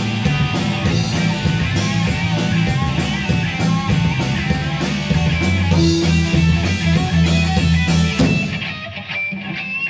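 Live rock band playing an instrumental passage: electric guitar and electric bass over a Tama drum kit with steady, evenly spaced drum and cymbal hits. Near the end the drums drop out for about a second, leaving the guitars ringing, before the beat comes back.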